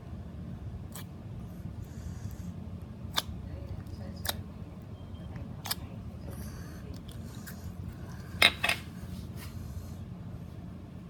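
Slime being handled, giving scattered sharp clicks and pops. The loudest is a quick pair about eight and a half seconds in, over a steady low hum.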